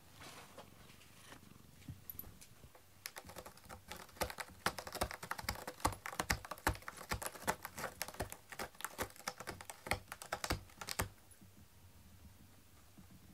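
Cat clawing a corrugated cardboard scratcher: a rapid, rasping run of scratches that starts about three seconds in and stops abruptly near the end.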